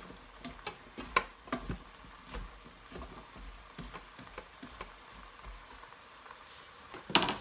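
A spoon stirring chopped vegetables and browned game meat in a slow cooker's inner pot: irregular light clicks and taps of the utensil against the pot, thinning out, then one louder clattering knock near the end.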